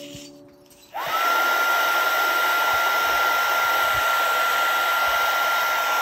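Wagner HT400 heat gun switched on about a second in. Its fan runs with a steady rushing sound and a high whine that climbs quickly to a held pitch. It is switched off near the end, and the whine falls as the fan spins down.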